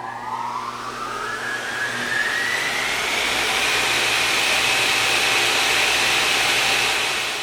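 A machine's motor spinning up: a whine rises steeply over the first two or three seconds, then holds at a high, steady pitch over a growing hiss, and begins to fade near the end.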